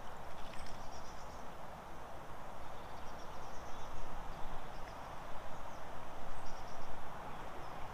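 Outdoor lakeside ambience: a steady background hiss, with small birds chirping faintly now and then.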